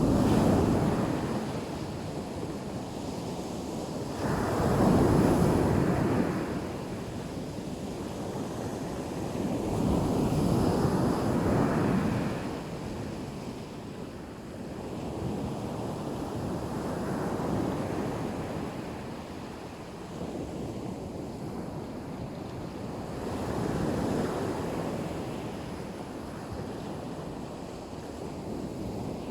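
Black Sea surf breaking on the shore, one wave swelling up and washing out about every five to six seconds, five in all, over a steady rush of sea breeze.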